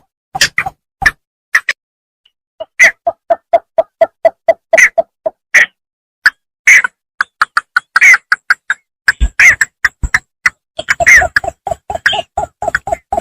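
Bittern (bambangan) calls from a bird-lure recording: rapid runs of short, sharp notes, about five a second, broken by a brief pause about a second in.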